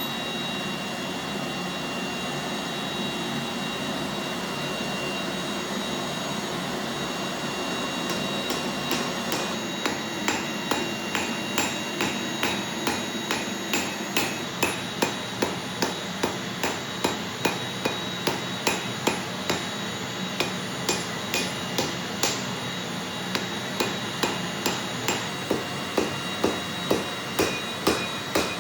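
A steady roaring noise, then from about eight seconds in a run of hammer blows on hot steel forging the Damascus billet, about two strikes a second, each ringing briefly.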